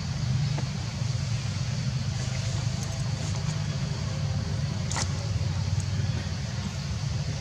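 Steady low rumble of a running engine, with one sharp click about five seconds in.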